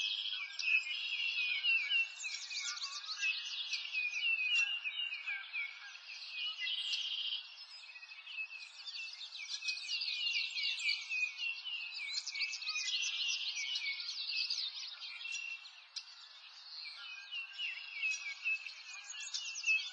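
A dense chorus of many small birds chirping and trilling at once, with quick sweeping calls overlapping throughout.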